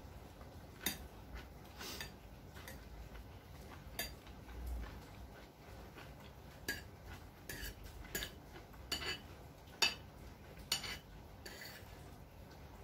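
Cutlery clinking and scraping against a dish of food: about a dozen faint, irregularly spaced clicks.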